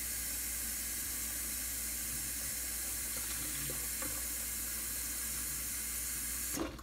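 Water running steadily from a tap into a plastic 2-liter bottle, stopping near the end.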